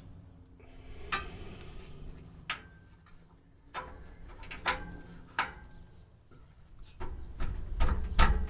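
Scattered metal clicks and clinks of a socket and wrench being fitted onto a downstream oxygen sensor in the exhaust pipe. A low rumble builds near the end.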